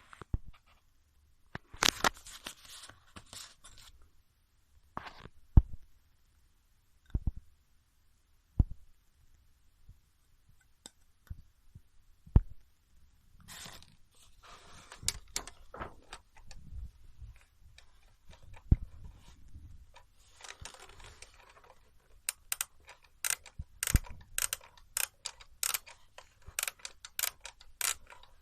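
Handling of a mechanical alarm clock: scattered knocks, clicks and scrapes, then from about two-thirds of the way in a steady run of sharp clicks about twice a second from the clock's mechanism.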